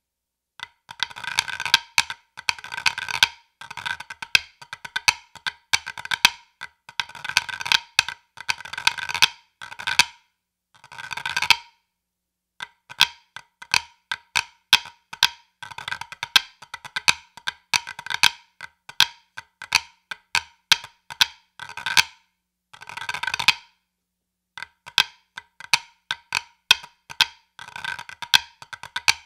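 Wooden drumsticks on a rubber practice pad playing pipe band snare drum parts in a 4/4 massed band march, with three difficulty levels of the part played together: crisp stick taps broken by frequent rolls, in phrases with short pauses between them.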